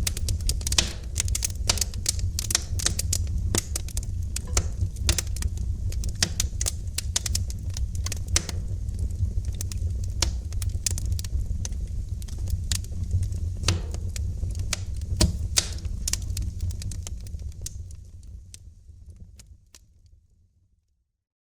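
Wood fire in a fireplace crackling and popping, with sharp snaps over a steady low rumble of the flames. The fire sound fades out to silence near the end.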